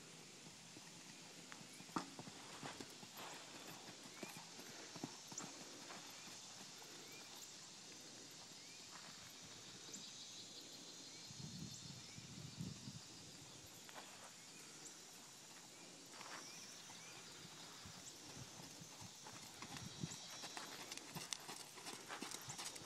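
Faint hoofbeats of a horse trotting on a sand arena footing, a scattering of soft, irregular thuds.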